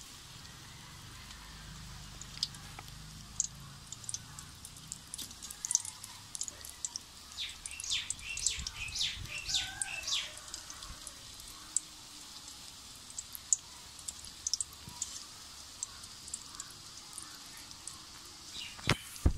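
Snake gourd bajji deep-frying in hot oil in an aluminium kadai: a faint steady sizzle with scattered sharp crackles, thickest in a quick run about halfway through. A couple of knocks come right at the end.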